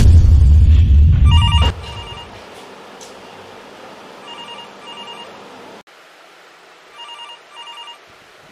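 A loud low rumble for the first second and a half, then a telephone ringing in double rings, ring-ring, three pairs about three seconds apart.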